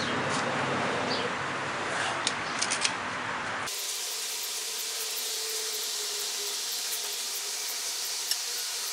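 Steady background hiss, with a quick run of about four light metal clicks a little over two seconds in as an ARP rod bolt is handled and threaded by hand into a connecting-rod bearing cap. The hiss turns thinner abruptly a little under four seconds in.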